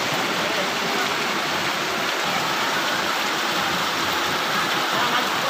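Heavy rain and fast-flowing floodwater rushing through a street, a steady, unbroken hiss and rush of water.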